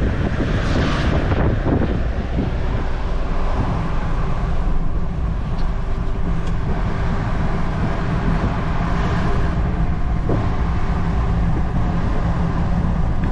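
Mahindra Thar driving along the road: a steady low rumble of engine and road noise.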